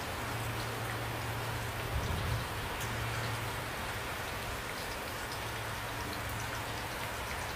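Steady rain falling, with individual raindrops ticking distinctly on a surface, over a low steady hum.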